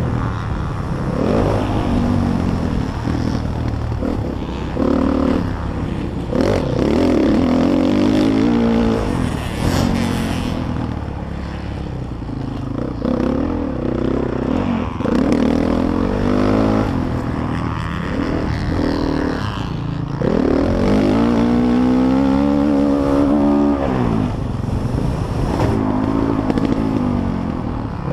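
Motocross bike's engine revving hard and falling back again and again as it is ridden around the track through the gears, over a heavy low rumble of wind on the helmet-mounted camera.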